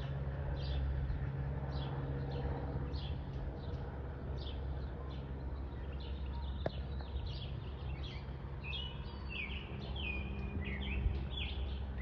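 Small birds chirping, a short call repeated over and over, turning into busier, more varied chirps in the last few seconds, over a steady low drone from a Cessna 172 Skyhawk's piston engine passing overhead. A single brief click about halfway.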